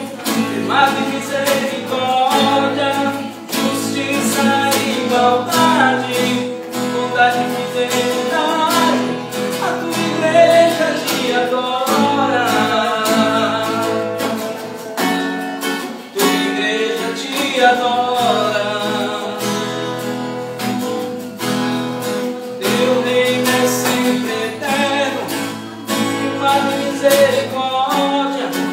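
A man singing a worship song to a strummed acoustic guitar.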